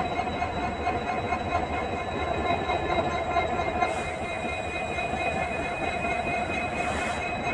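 EMD engine of a WDP4D diesel locomotive humming steadily: a constant low rumble with several steady whining tones over it.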